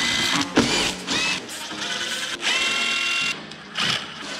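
Power drill-driver whirring in several short bursts of a steady whine, as bolts are run out of the motorcycle's plastics.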